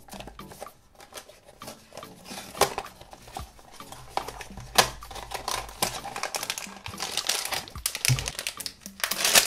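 Small cardboard box being handled and opened: clicks, taps and scrapes of the paperboard as the end flap is pried open, with two sharper clicks in the first half. Near the end a foil bag pulled from the box crinkles.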